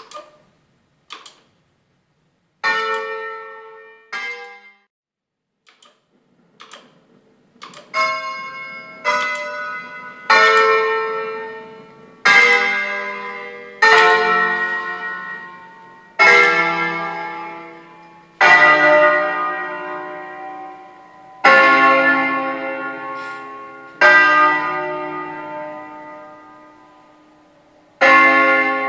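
An eight-bell church ring tuned in D-flat, cast by L. D'Adda in 1954, played one note at a time in a slow festive concert. Each bell strikes sharply and rings on with a long decaying hum. After a few light knocks and two quieter notes at the start, the strikes come every one to three seconds and grow louder, heard from inside the church's sacristy.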